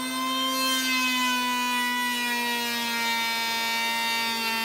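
Electric hand planer running as it planes a Douglas fir panel: a steady, high motor-and-cutterhead whine that sags slightly in pitch as it cuts.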